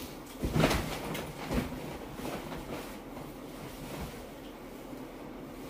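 A person climbing onto a bed and lying down: a heavy thump about half a second in and a second, smaller one about a second later, then softer rustling of the bedding as she settles.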